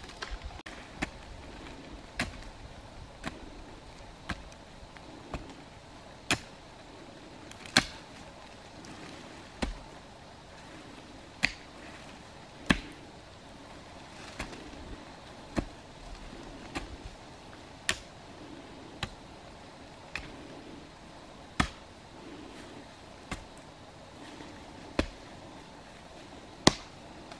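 Hoe blade striking into packed earth again and again, a sharp chop about once every second or so, as steps are dug into a soil bank.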